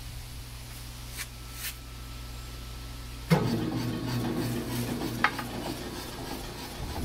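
Hitachi PF110F Super Surfacer humming steadily under power, with a couple of light clicks. About three seconds in, its feed mechanism starts with a sudden clunk and runs on with a louder mechanical rumble and rattle.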